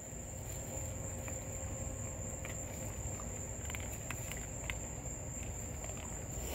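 Night insects trilling in a steady, high-pitched drone, with a few faint clicks scattered through it.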